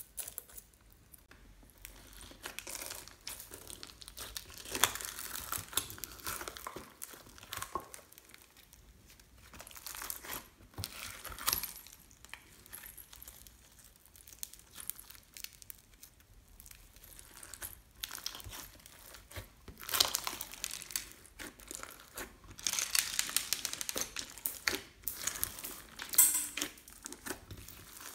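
Slime loaded with foam beads and plastic beads being squeezed and kneaded by hand: irregular bursts of crackling and crinkling with quieter stretches between.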